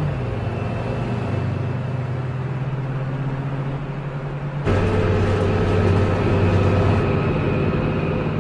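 Engines of a tanker truck and a car running at speed on a road, a steady drone whose pitch dips slightly at first, then switches abruptly to a louder, fuller engine note about halfway through.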